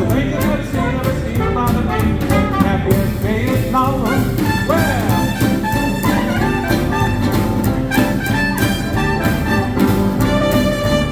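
Small live swing band playing an instrumental passage of a 1930s-style jazz tune, with brass taking the lead over a steady rhythm section; the brass slides between notes about four to five seconds in.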